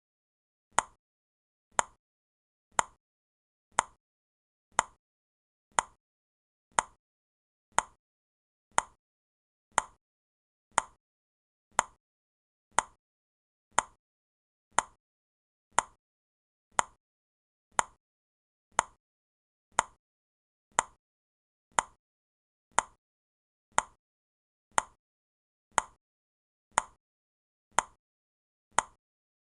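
Clock-tick sound effect of a countdown timer, ticking once a second with short, sharp, evenly spaced ticks and silence between them.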